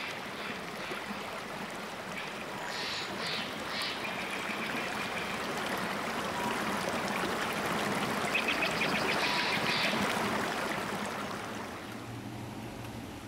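Shallow stream rushing over rocks: a steady wash of flowing water that swells a little and then fades down near the end.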